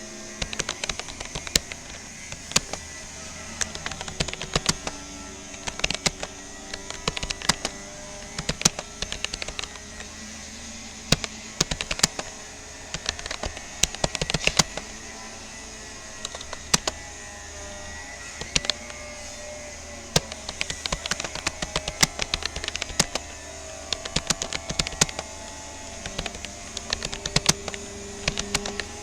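Typing on a Rapoo computer keyboard: quick, irregular runs of key clicks with short pauses between them.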